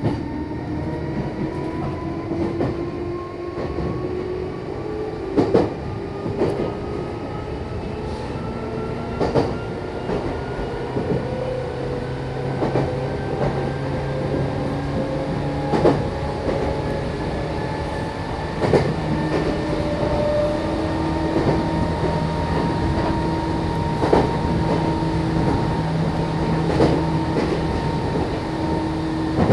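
Interior running sound of a Meitetsu Bisai Line electric train. The traction motors hum in several tones that slowly rise in pitch as the train gathers speed, then hold steady about two-thirds of the way through, over a constant rumble. The wheels knock over rail joints every few seconds.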